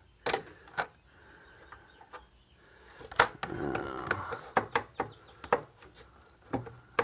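Sharp clicks and knocks, about half a dozen, with a brief scraping rattle a little past the middle, from hands and pliers handling a router's circuit board and its metal power-supply box, which is still held down by a screw.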